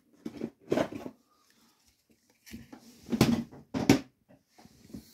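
Small cardboard perfume sample packs being handled and set down on a towel: about five soft knocks and rustles, the loudest about three to four seconds in, with a faint papery hiss near the end.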